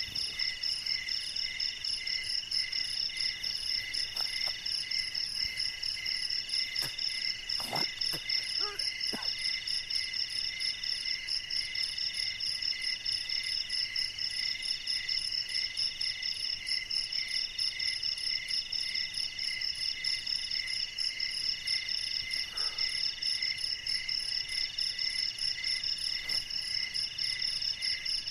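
Night-time insect chorus: several insects trill continuously at different high pitches, each in a steady pulsing rhythm. A few faint knocks or rustles come at about 4, 8 and 22 seconds in.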